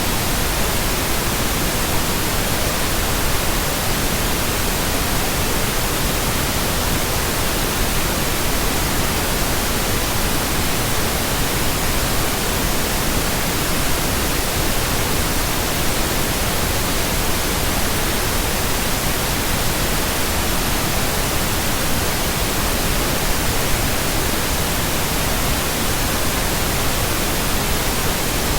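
Steady synthetic pink noise: an even, unchanging hiss spread across all pitches, with no tones or breaks.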